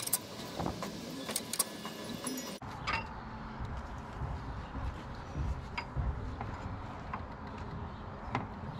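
Hand wrench tightening bolts on the excavator's hydraulic filter housing: scattered metallic clicks and clinks of the tool on the bolt heads. From about a third of the way in, a low steady rumble sits underneath.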